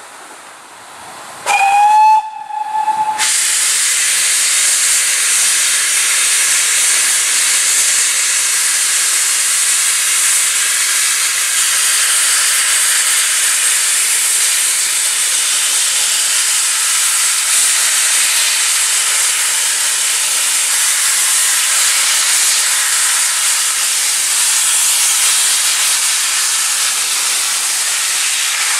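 GWR pannier tank steam locomotive gives one short whistle blast about two seconds in, its pitch rising slightly as it opens. Then comes a loud, steady hiss of steam venting from the engine.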